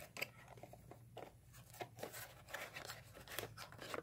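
Faint handling noises: scattered small clicks and rustles of a clear plastic display case and packaging being handled off camera.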